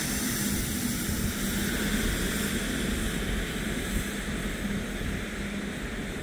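A train running past with a steady rumble and a low steady hum, slowly fading as it moves away.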